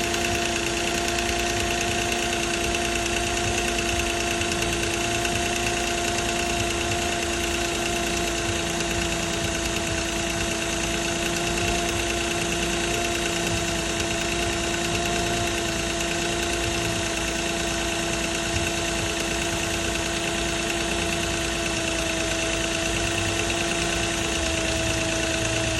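2006 Nissan Maxima's 3.5-litre V6 running steadily, with the timing chain rattle it is recorded for.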